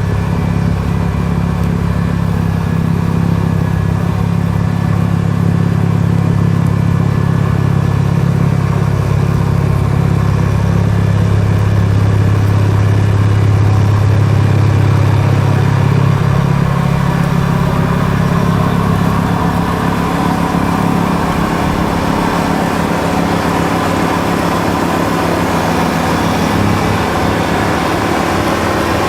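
Kubota L5740 tractor's diesel engine running steadily, its note shifting a little past halfway through.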